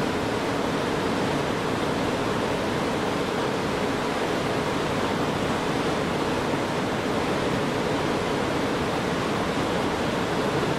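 Steady rushing noise with a faint hum from an approaching train: a PKP Intercity EU44 Husarz (Siemens Taurus) electric locomotive hauling passenger coaches into the station.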